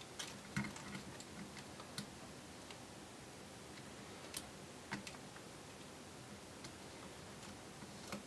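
A handful of faint, irregular small clicks and taps: a plastic pry tool and fingertips working ribbon-cable connector latches on a laptop mainboard as the cables are reconnected.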